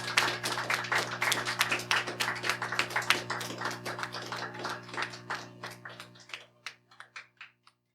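Small audience applauding, the clapping thinning out to a few scattered claps, over a steady low drone that cuts off abruptly near the end.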